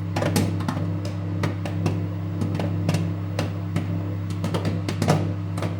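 Microwave oven running with a steady hum while popcorn kernels pop inside, irregular sharp pops coming a few times a second.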